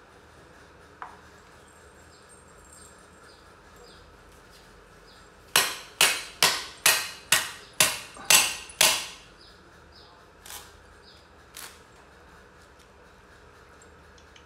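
Cleaver chopping on a wooden cutting board: a quick run of about eight hard chops at two to three a second, followed by two lighter single knocks.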